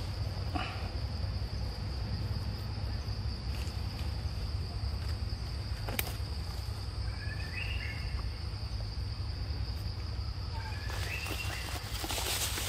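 Steady high-pitched insect drone over a constant low rumble. There is a sharp click about halfway through and a few short chirps near the middle and again near the end. The drone stops shortly before the end, and a louder rustle takes over.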